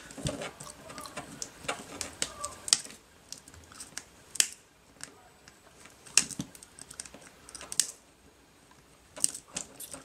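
Miniature side cutters snipping thin wires off a small circuit board: a sharp click with each cut, about five over the stretch, roughly one every second and a half, with light handling rustle in between.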